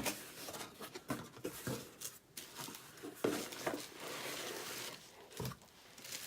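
Cardboard packaging being handled and opened: scattered rustles, scrapes and light knocks with no steady rhythm.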